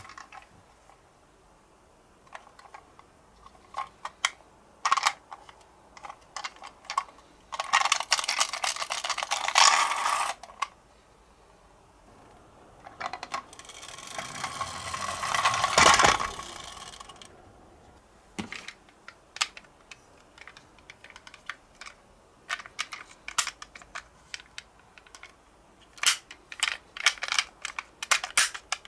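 Toy minicar wheels rattling as it rolls down a plastic slope track, twice: once for about three seconds, then a run that grows louder and ends sharply. Scattered small plastic clicks and taps come before and after. No siren is heard.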